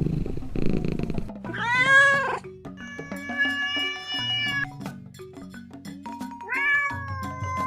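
Domestic cat purring briefly, then meowing three times: a short meow, a long drawn-out one, and another near the end. Background music plays underneath.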